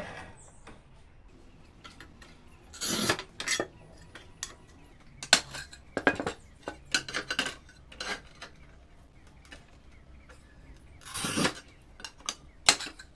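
Manual tile cutter scoring a ceramic tile: the cutting wheel scrapes across it for under a second, then a sharp snap as the tile is broken along the score. Hard clicks and clacks of the cut tile pieces follow, with another short scrape and more clacks near the end.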